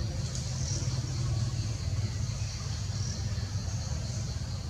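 Outdoor forest ambience: a steady low rumble under a continuous high-pitched insect drone that swells and fades slightly.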